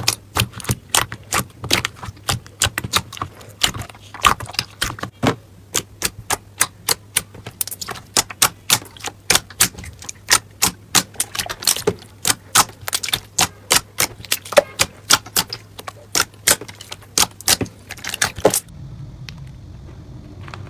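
Slime being pressed and poked by hand, giving a run of sharp crackling pops and clicks, about two to three a second, that stops shortly before the end.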